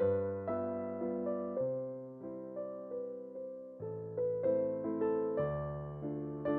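Background music: a slow, gentle piano melody of sustained, decaying notes.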